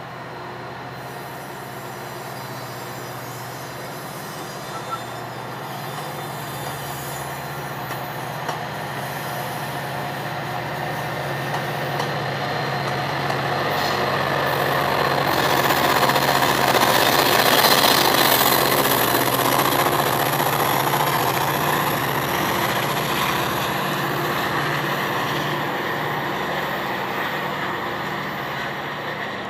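Metra commuter train passing close by: steady rumble and clatter of steel wheels on the rails under bilevel gallery cars, with the low drone of an EMD F40PH diesel locomotive. It grows louder as the locomotive goes by a little past halfway through, then fades as the train moves away.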